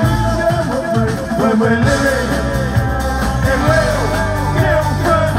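Live ska band playing, loud and amplified: a singer's voice over trumpet, bass guitar and drums.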